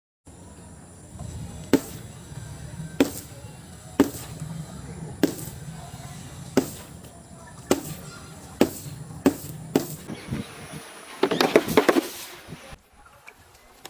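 Objects being broken and crushed: a series of sharp cracks, roughly one a second, over a low steady hum, then a burst of crunching near the end.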